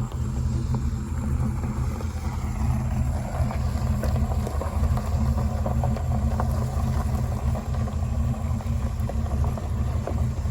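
A 1979 Pontiac Trans Am's V8 engine running steadily with a deep, even rumble.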